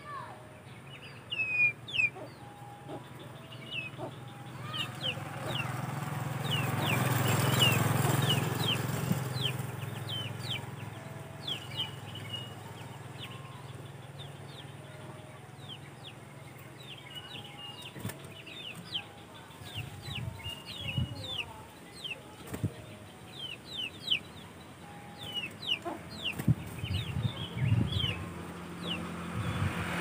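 Sooty-headed bulbul (kutilang) calling: a quick scatter of short, sharp notes that sweep downward, mixed with a few brief lower steady notes. A low rumble swells up and fades about a quarter of the way through.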